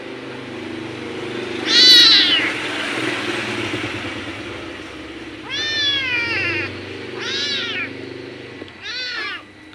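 Young orange-and-white kitten meowing four times, the meow about two seconds in the loudest, over a low steady hum.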